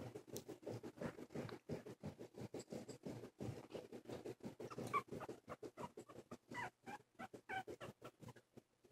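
Two-and-a-half-week-old silky terrier puppy snuffling and nosing at the carpet, a rapid run of short soft sounds, with small high squeaks from about halfway through.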